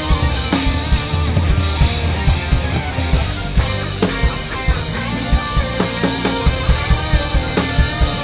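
Drum kit played hard and fast along with a rock backing track of electric guitar and bass, with dense kick, snare and cymbal hits.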